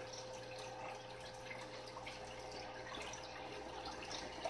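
Aquarium filter running: a faint, steady trickle and drip of water with a steady low hum underneath.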